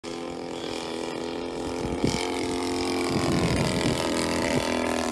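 Engine of a large radio-controlled model Stearman biplane, droning steadily as the plane flies past. It grows louder over the first three seconds, then its pitch drops slightly as the plane passes.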